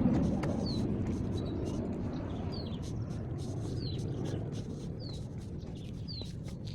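A small bird repeating a short, falling chirp about once a second, over a steady low rustle of wind or movement.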